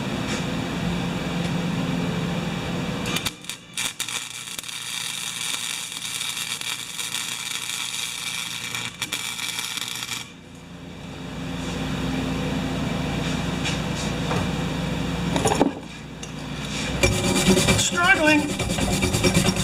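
Electric welding on a mower's grass-bag frame: a steady machine hum, then a crackling, hissing arc for about seven seconds starting some three seconds in. The hum returns, and a second short stretch of crackle comes near the end, with the welding going badly ('struggling').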